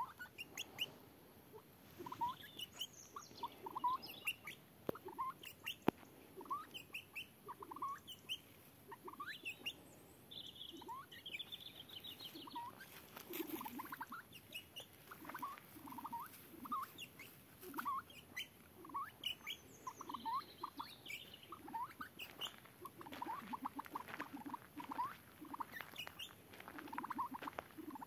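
A pheasant's short squeaky calls: quick high chirps, often in pairs, repeated irregularly several times a second.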